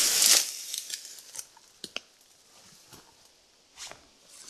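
Dry branches and leaves rustling and snapping as someone pushes through dense brush on foot. The loudest rustle is in the first half second, followed by a few twig snaps, a quiet stretch and another short rustle near the end.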